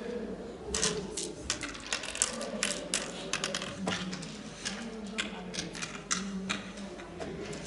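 Oware seeds clicking as they are dropped into and knock about in the pits of a wooden oware board, a few scattered clicks a second, with a low murmur of voices behind.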